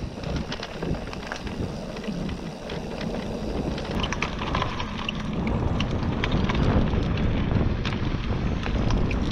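Electric mountain bike riding along a rough dirt woodland trail: tyres rumbling over the ground, with scattered clicks and rattles from the bike, under steady wind noise on the microphone.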